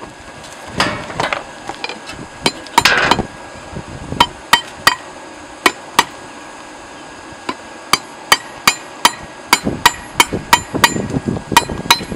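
Hand-forging hammer blows on hot steel over an anvil, drawing out the point of a punch made from an old tire iron. The strikes ring and come irregularly, a few at first and then faster, about two or three a second, near the end.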